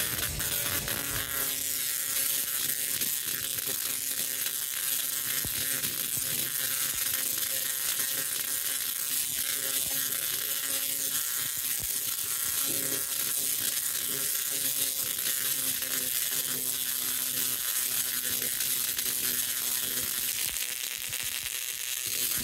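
Tesla coil discharging continuous electric arcs into the air: a steady, loud buzzing crackle of sparks, with a faint pitched hum underneath.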